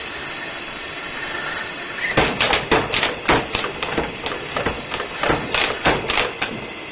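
Blacksmith's hammer striking hot iron on an anvil in a quick run of blows, about four or five a second, starting about two seconds in and stopping shortly before the end.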